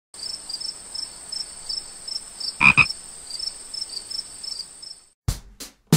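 Frog-and-insect night chorus: a steady high insect trill with short high chirps repeating several times a second, and a frog croaking twice about two and a half seconds in. The chorus cuts off suddenly about five seconds in, and a sharp hit follows.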